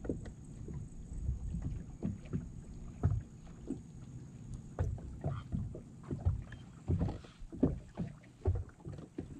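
Small waves slapping against a bass boat's hull in irregular low knocks and splashes.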